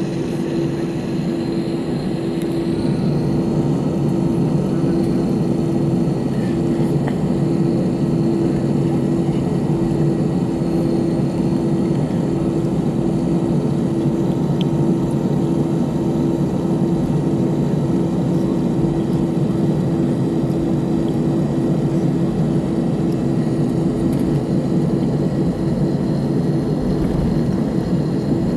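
Cabin noise inside an Airbus A319 taxiing at low power: a steady jet-engine hum with one constant tone running through it.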